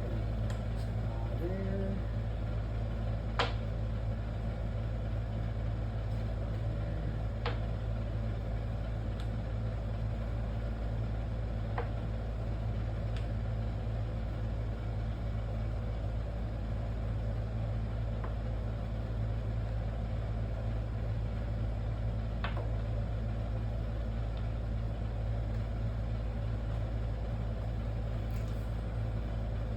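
Steady low mechanical hum, with a handful of sharp single clicks spread through it, like small ceramic mosaic tiles being set down on a board.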